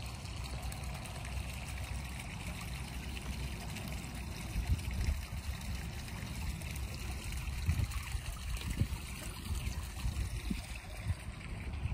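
Water trickling steadily under a low rumble, with a few brief louder knocks.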